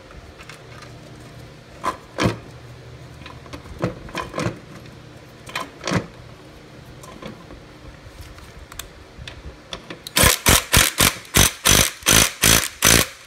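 Light metallic clicks and knocks of bolts and a tool being handled. About ten seconds in, a cordless impact driver runs in a rapid string of short, loud bursts, driving the engine mounting bolts up through the mower deck.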